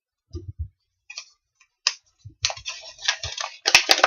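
Handling noise: a few soft taps, then a run of crackling and rustling with sharp clicks near the end, as small objects are picked up and moved about.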